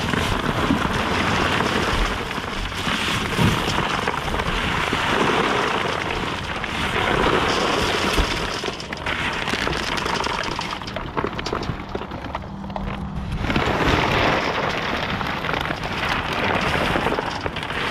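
Flattened cardboard boxes being handled and pulled out of a dumpster: continuous rustling, scraping and crackling of cardboard, rising and falling in loudness.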